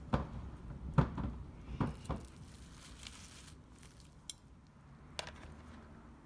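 Cling film being peeled off a gel-coated metal part: plastic crinkling with several sharp light knocks in the first two seconds, quieter rustling after that, and two brief clicks near the end.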